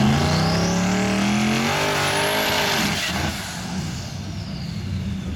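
Twin-turbo Mustang doing a burnout: the engine revs with its pitch climbing for about three seconds, then drops back to a lower steady rumble, over the hiss of spinning rear tires.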